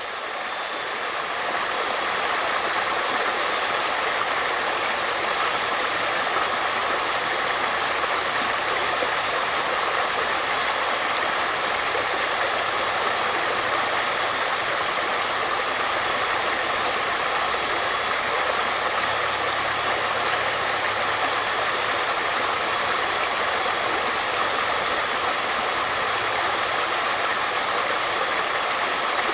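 Flowing water rushing steadily, an even hiss that fades in over the first couple of seconds.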